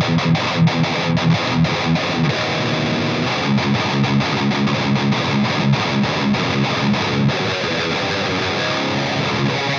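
Distorted electric guitar played through an EVH 5150 III LBX amp head, with the mids turned up full and the presence turned down a bit: a run of quick, short struck notes in the first few seconds, then longer held notes and chords.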